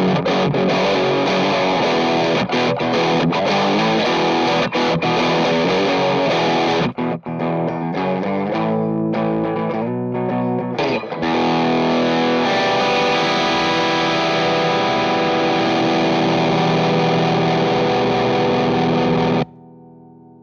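Electric guitar, a Gibson Les Paul, played through a Fuzzrocious Demon overdrive pedal: low-to-medium-gain distorted riffing with a few short stops, then a chord left ringing that is cut off abruptly near the end, leaving a faint ring.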